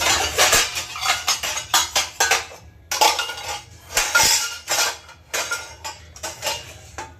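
Plates and cutlery clattering and clinking as they are handled, in a quick irregular run of knocks with a short pause about three seconds in.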